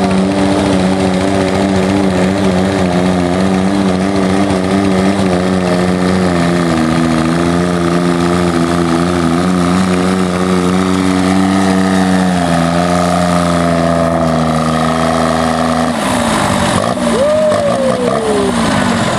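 Diesel engine of a pulling-modified Cub Cadet garden tractor running hard under load as it tows a weight-transfer sled, its note steady with a slight waver. About three-quarters of the way through the engine note drops off sharply, and a whine then glides downward.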